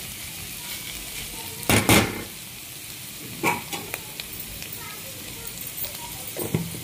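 Sliced onions and green chillies sizzling in oil in a non-stick pan on a medium flame, with a few scraping strokes of a steel spatula stirring them, the loudest just under two seconds in.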